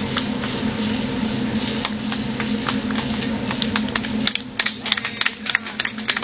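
Steam-powered sawmill machinery running with a steady hiss and low hum, shutting down about four seconds in. Scattered sharp clicks follow it.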